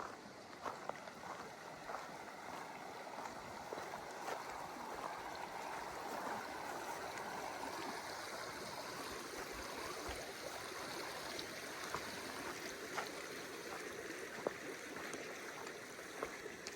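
Creek water flowing steadily, with a few light footstep clicks in the first two seconds.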